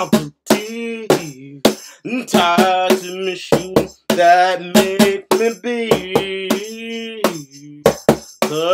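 A man singing in long held notes, accompanied by sharp hand strikes on a Meinl cajon, roughly two a second.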